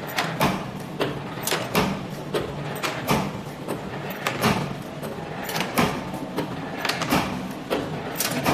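Mechanical steel R cotter pin making machine running, with a steady motor hum under repeated sharp metallic clacks from its wire bending and cutting tools, about two or three a second and often in pairs.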